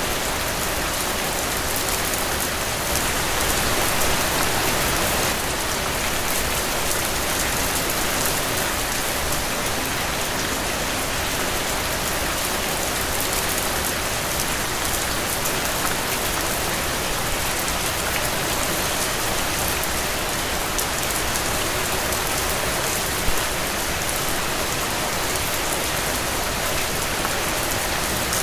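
Heavy, steady rain falling on the ground, a dense even hiss with scattered drop ticks and one louder drop about three-quarters of the way through.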